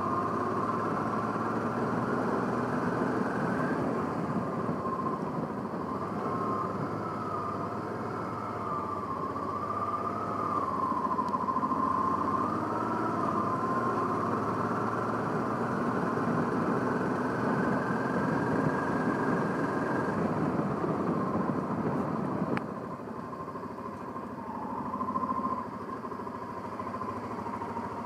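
Honda Africa Twin motorcycle engine running while the bike rides slowly. About three-quarters of the way through, the sound steps down to a quieter engine running at rest.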